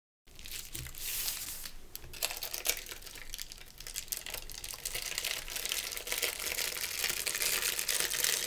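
Sheet of printer paper being rubbed and crinkled by hand against a gel printing plate, a continuous dry rustling with small crackles that starts abruptly just after the beginning.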